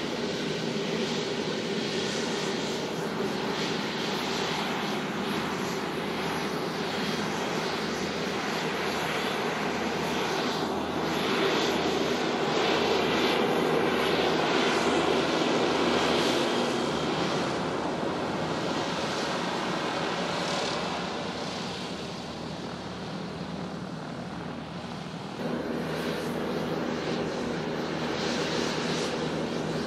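Boeing 747-8i jetliner's four GEnx turbofan engines running at taxi power as the plane taxis and turns: a steady jet hum with a few held tones, a little louder around the middle, dropping off and then jumping back up abruptly a few seconds before the end.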